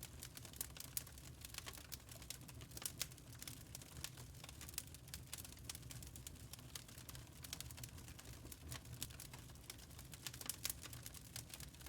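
Wood fire crackling in a fireplace: many small, irregular pops and snaps over a low, steady rumble.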